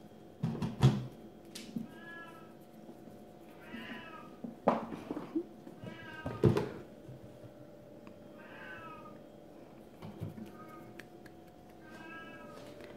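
A kitten meowing again and again: about six short, high meows a couple of seconds apart. A few sharp thumps fall among them; the loudest come about half a second in and about halfway through.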